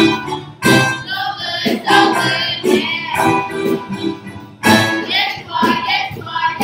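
A group of children singing a song together with guitar accompaniment.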